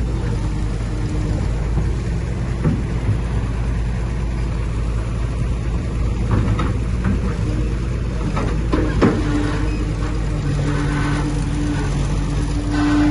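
Heavy diesel engine of earthmoving machinery running steadily, with a few short knocks and clanks; the loudest comes about nine seconds in.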